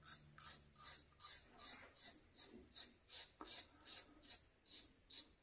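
Double-edge safety razor with a Personna platinum blade scraping through lather and stubble on the neck, in short, quick strokes about two or three a second.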